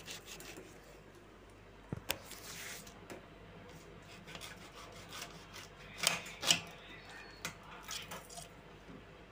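Metal spoon stirring rice cooked in milk in a stainless steel pot, scraping along the pot with a few sharp clinks against it: one about two seconds in and two louder ones close together about six seconds in.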